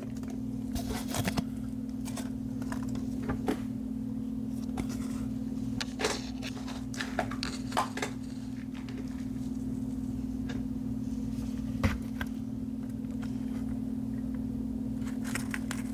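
Potting mix rustling and small plastic clicks and taps as hands move soil around a plastic tray and scoop it into a clear plastic cup, with one sharper knock about twelve seconds in. A steady low hum runs underneath.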